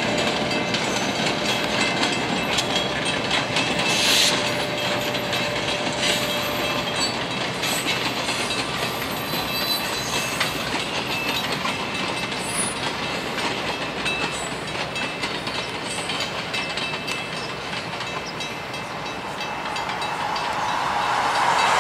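Yorkrail GP16 diesel locomotives rolling by, their wheels clicking over the rail joints under a steady rumble. A short, sharp, high sound comes about four seconds in, and the sound swells louder near the end.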